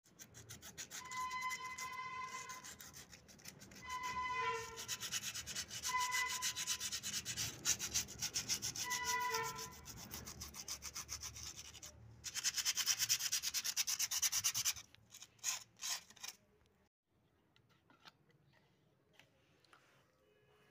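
Rapid rubbing or scraping strokes on a hard surface, with short squeaks now and then. It stops about 16 seconds in, leaving a few faint clicks.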